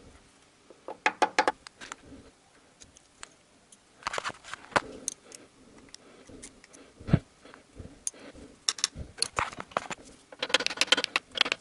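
Light metal-on-metal taps on a stuck connecting-rod cap of a VAZ 2111 engine, in short runs of several quick taps with one harder knock about seven seconds in and a denser run near the end. The cap is being tapped to break it loose from its seat and does not yet move.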